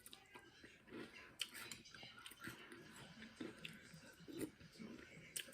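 Faint chewing of crunchy Cap'n Crunch cereal in milk, a string of small irregular crunches.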